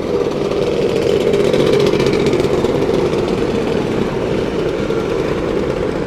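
A procession of motor scooters riding slowly past one after another on a wet road, their small engines making a continuous, steady drone.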